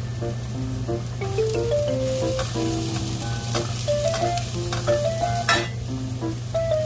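Food sizzling and frying in a pan while it is stirred, the utensil clicking against the pan, with one sharp click about five and a half seconds in. A gentle music melody plays over it.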